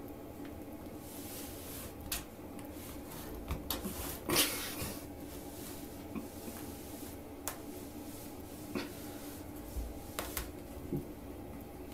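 A woven rag rug being tugged in short pulls across a tiled floor and under a wooden door by a cat's paws: scattered rustles, scrapes and light knocks, the loudest about four seconds in, over a steady low hum.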